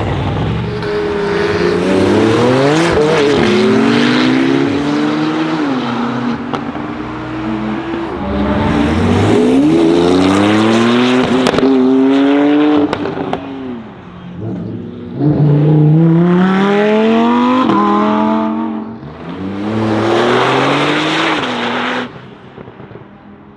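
Porsche 991 Turbo S twin-turbo flat-six with an Akrapovic exhaust accelerating hard through the gears several times. The pitch climbs in each gear and drops back at every shift, and the sound falls away sharply near the end.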